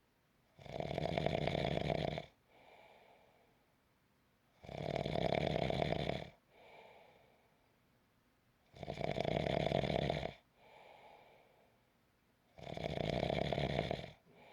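A person snoring steadily in sleep: four loud snores about four seconds apart, each followed by a quieter, shorter breath.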